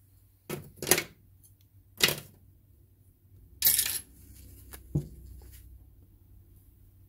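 Small metal parts of a disassembled impact wrench being picked up and moved about on a bench: a few sharp clicks and knocks, a brief rustle about halfway through, then two more clicks close together.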